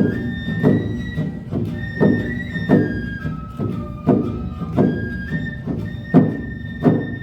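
Awa Odori hayashi band music played live: a shinobue bamboo flute holding long melody notes over drum strikes that come about every two-thirds of a second.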